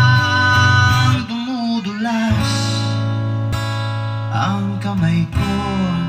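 A song with guitar played loud through a stacked mid-high loudspeaker system during a sound test. A sung line comes in the first second, then held instrumental notes over a heavy bass line.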